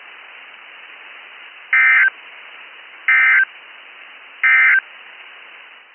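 Three short bursts of Emergency Alert System (SAME) digital data tones, evenly spaced a little over a second apart, over a steady radio hiss. They are the end-of-message code that closes the weather alert.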